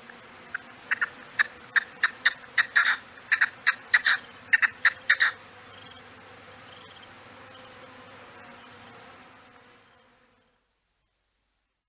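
Gamebird calls: a rapid run of short, sharp notes, a few a second, stopping about five seconds in. A faint steady background follows and fades out to silence near the end.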